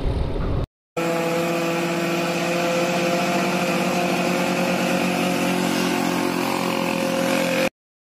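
Vehicle engine running at a steady speed while on the move. It cuts off abruptly just before a second in, starts again, and cuts off abruptly near the end.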